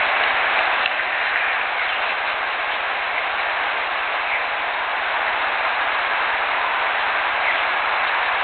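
A steady hiss from an outdoor field recording, with a few faint ticks scattered through it.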